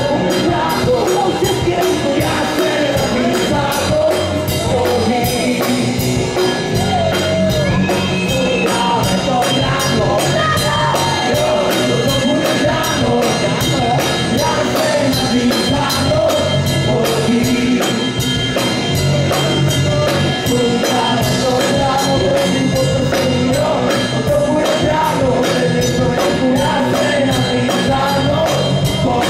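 Live rock band: a man singing into a microphone over drum kit, electric guitar and bass guitar, with a steady drum beat.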